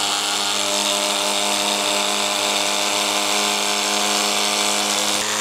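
Handheld electric fabric cutter running at a steady pitch as it cuts through carbon-fibre cloth. It starts suddenly at the very beginning.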